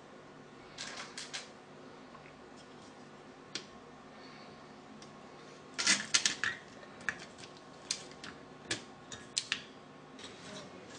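Scattered small metallic clicks and taps of binding posts and their nuts being fitted and tightened with a metal hand tool in a computer power supply's sheet-metal case. The loudest cluster of quick clicks comes about six seconds in.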